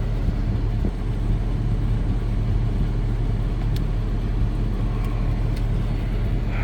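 2007 Jeep Grand Cherokee idling with its air conditioning running: a steady low engine hum under the even rush of the blower.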